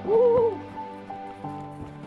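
Background music with sustained notes. At the very start a loud, short hooting tone rises and falls over about half a second.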